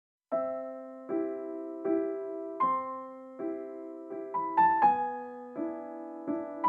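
Background piano music: gentle chords struck one after another at an easy pace, each ringing and fading before the next. It starts a moment after a silence.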